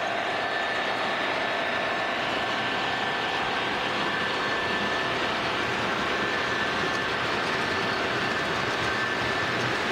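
O scale model freight train rolling past on three-rail track: a steady rumble of metal wheels on the rails, with a thin steady whine above it.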